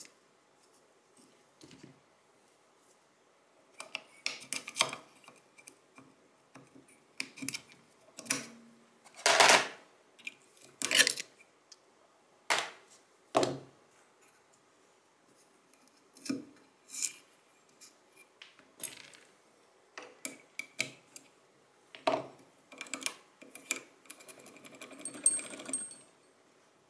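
Steel parts of a Stgw. 57 trigger housing clicking and clinking as they are handled and worked loose in a vise: irregular sharp metallic clicks and knocks, the loudest a little before halfway, with a short scraping noise near the end.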